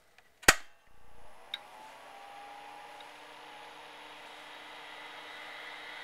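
A single loud, sharp click, then an IBM PS/2 Model 80 spins up. Its fan and hard drive rise in pitch for about a second, then settle into a steady whir with a faint whine.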